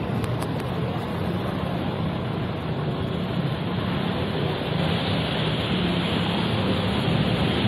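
Floodwater rushing and splashing as a bus and motorbikes drive through a flooded street, with a low engine rumble under the steady wash of water; it grows a little louder about five seconds in.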